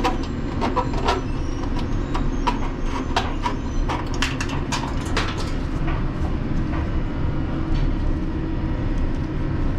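Sharp clicks and knocks of plastic retaining clips and sheet-metal parts being pried and pulled by hand, bunched in the first half, over a steady low hum of running machinery.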